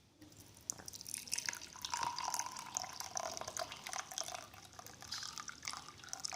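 Boiled-down herbal liquid poured from a small cooking pot through a strainer, trickling and dripping.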